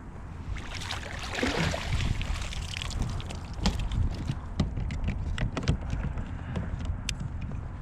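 Irregular knocks and clicks of handling on a fishing kayak, over a steady low rumble.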